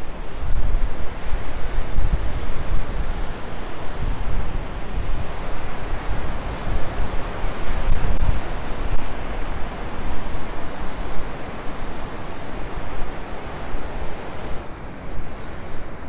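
Ocean surf breaking and washing below the cliffs, a steady rushing noise, with wind buffeting the microphone in gusts that are strongest in the first half.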